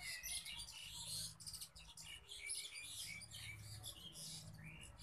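Macrame cord rustling and rubbing as square knots are pulled tight by hand, with many faint, short high chirps scattered through.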